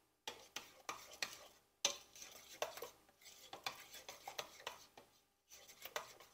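Small metal spoon stirring soft, fresh ricotta in a bowl: irregular wet scrapes and sharp clinks of the spoon against the bowl, with a short pause about five seconds in.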